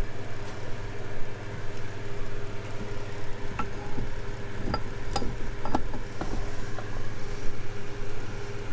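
A few sharp metal clicks and taps from a wrench working on an outboard's prop shaft parts while they are being tightened, over a steady low hum in the shop.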